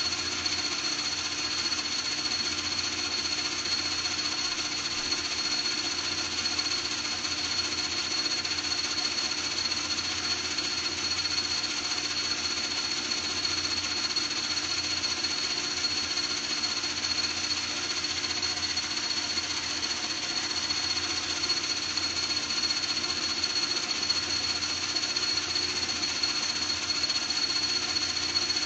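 A small electric motor or power tool running steadily, with a fast fine rattle and a constant high whine that holds one pitch throughout.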